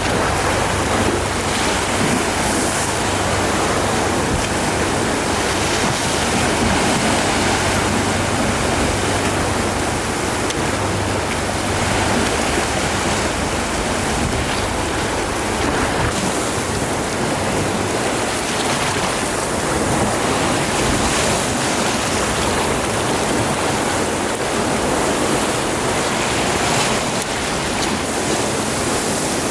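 Sea waves washing steadily, a continuous wash with gentle swells. A low hum runs beneath it for about the first twelve seconds and then fades out.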